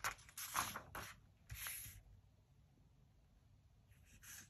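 Paper rustling and scraping as a comic book page is turned by hand: a few quick rustles in the first two seconds, then almost quiet, with a faint brush of paper near the end.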